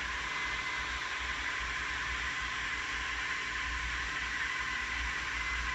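2008 Toyota Yaris four-cylinder engine idling steadily after a remote start, a constant hiss over a low rumble.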